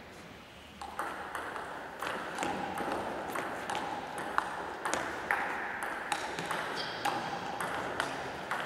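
Table tennis rally: the ball clicking off the players' bats and bouncing on the table, a quick back-and-forth of sharp clicks starting about a second in.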